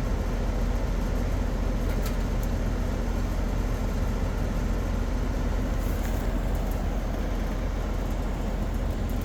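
A machine running steadily: a constant low rumble and hum under an even hiss, with no change in speed or level.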